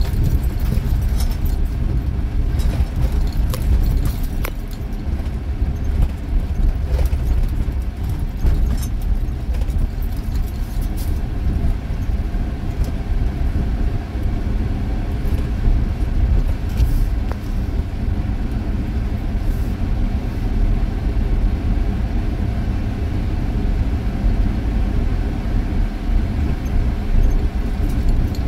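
Vehicle cabin noise while driving on a sandy beach track: a steady low rumble from the engine and tyres, with scattered light clicks and rattles.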